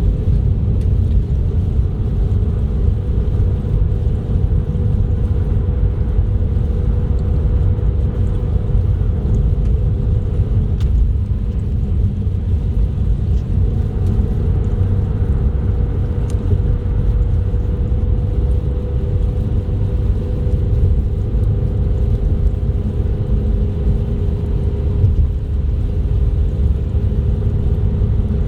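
Car driving at a steady speed: a steady low rumble of engine and tyres on the road, with a constant two-tone hum above it.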